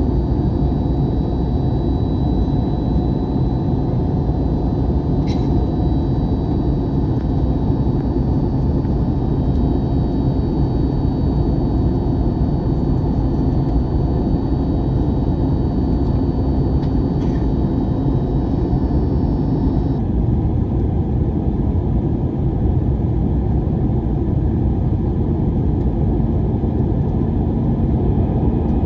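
Airbus A321-200 cabin noise in flight on descent before landing: the steady roar of the engines and airflow, with a faint hum whose pitch drops slightly about twenty seconds in. Two faint clicks come through.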